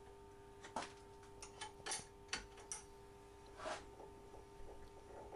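A handful of faint, irregular metallic clicks as a wrench turns the nuts on the threaded rods of a homemade bearing press, forcing a spindle into a bearing, over a steady faint hum.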